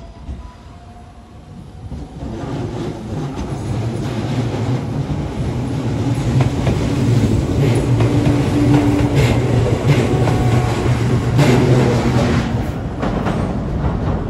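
Tobu 8000 series electric train running in alongside the platform, growing steadily louder as it draws near, with a low motor hum under the rumble of the wheels. A few sharp clacks of the wheels over rail joints come in the second half.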